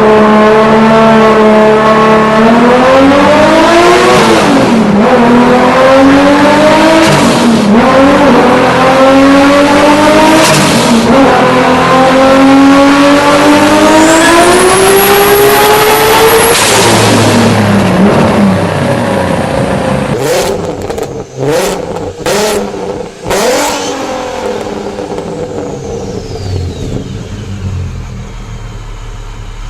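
A car with a forced-induction engine accelerating hard through several gear changes, the engine note climbing in each gear and dipping at each shift. A high whistle comes in near the top of the last pull. The car then lifts off and the note falls, with a few short sharp bursts and a high whistle sliding down as the boost dies away.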